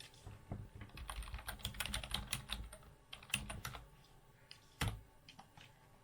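Typing on a computer keyboard: a quick run of key clicks for about three seconds, then a single louder knock near the end.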